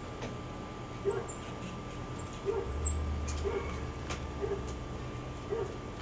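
A short, low-pitched animal call repeated steadily about once a second, with a few sharp taps a little past the middle and some brief high chirps.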